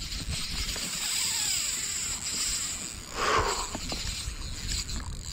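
Daiwa Fuego 3000 LT spinning reel being cranked to bring in a hooked fish on a bent rod, over a steady low rumble of wind on the microphone. A short rush of noise comes a little over three seconds in.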